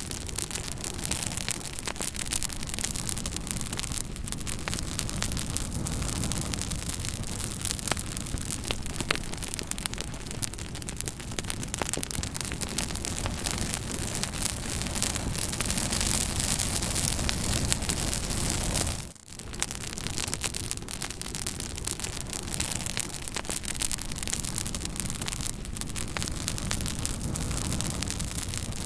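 Fire crackling: a steady hiss full of small, dense pops and snaps, with a brief drop-out about two-thirds of the way through.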